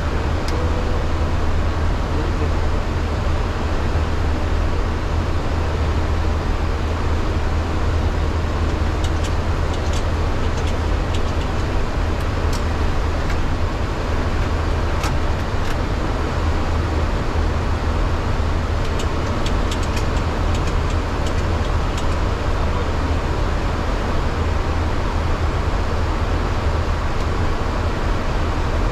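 Steady airflow and engine noise on the flight deck of a Boeing 737-800 climbing out after takeoff, with a constant deep rumble underneath. A few faint clicks come through in the middle.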